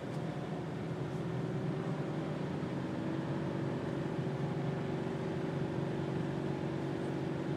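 Steady drone of a Subaru XV driving on snow, heard from inside the cabin: a low, even engine hum under road and tyre noise.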